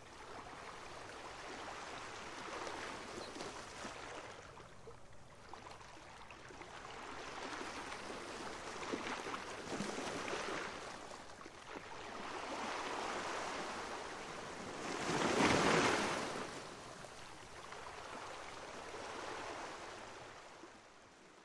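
Small waves washing onto a sandy beach, the surf swelling and falling back every few seconds, with the loudest wash about three quarters of the way through.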